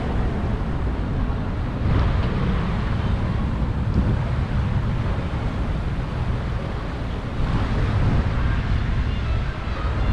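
Wind buffeting the camera's microphone in a steady low rumble, over a wash of street traffic that swells a little a couple of times.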